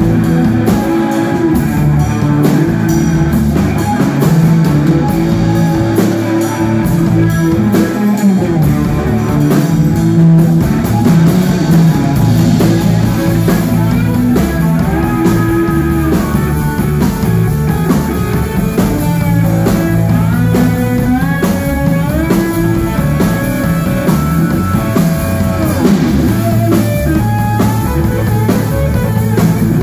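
Live instrumental rock from a trio: a lead electric guitar over electric bass and a drum kit. In the second half the guitar notes glide up and down between pitches.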